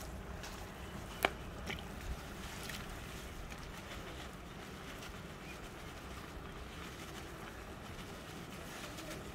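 Steady low rumble with a faint sizzle as whole spices are shaken from a cloth into hot oil and boiled chickpeas in a large cooking pot; one sharp click about a second in.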